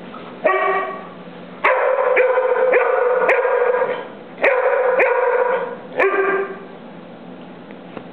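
Black Labrador barking in play: a short bark, then two long, drawn-out barks, and a last short bark about six seconds in.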